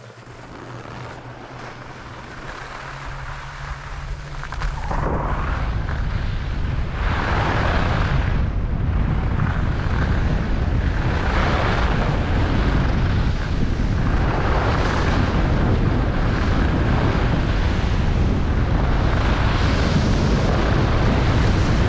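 Wind buffeting a GoPro action camera's microphone as a skier speeds up on a groomed piste, with skis hissing and scraping over the snow. It builds over the first five seconds, then stays loud.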